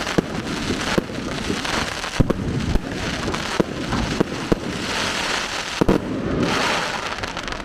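Fireworks going off: a string of sharp bangs and cracks over dense crackling, the crackle swelling in the second half.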